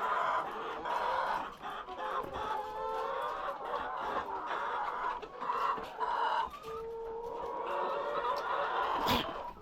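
A flock of laying hens clucking and calling over one another, with short clucks and a few longer drawn-out calls. A single short knock sounds near the end.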